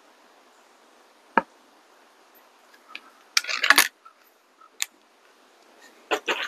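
Feinwerkbau 124 spring-piston air rifle being handled while it is cocked and loaded. There is a single sharp metallic click about a second and a half in, then a brief cluster of metallic clicks and rattles around three and a half seconds, and a few more clicks near the end. A faint steady background hiss runs under them.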